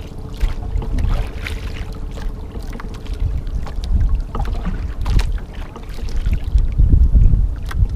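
Wind buffeting the microphone and water slapping against the hull of an outrigger boat at sea, with a faint steady hum that fades out about halfway through.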